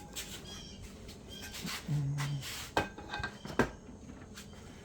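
A few sharp knocks and lighter clicks of tools and metal parts being handled at a motorcycle's rear wheel, the two loudest knocks about a second apart near the middle. A short low hum comes just before them.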